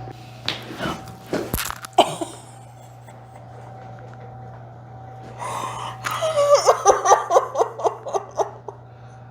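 A few sharp joint cracks during a chiropractic adjustment in the first two seconds. Later a sharp breath, then a rapid run of short vocal bursts from the patient, about four or five a second for two to three seconds.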